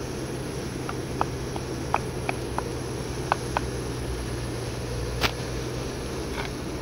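Steady rush of a small gas-canister camping stove burning under a frying pan. Faint short ticks and pops come as chopped chicken is scraped into the hot butter with a wooden spatula, and there is one sharp knock about five seconds in.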